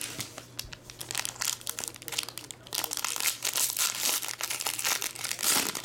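Foil trading-card pack wrapper crinkling as it is handled and pulled open: a dense run of irregular crackles, loudest about three seconds in and again near the end.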